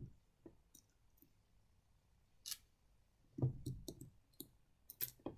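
Scattered small clicks and light knocks of a screwdriver and small metal parts being handled while screwing a model train's motor back into its chassis. There is a short scrape about halfway through and a quick cluster of duller knocks after it.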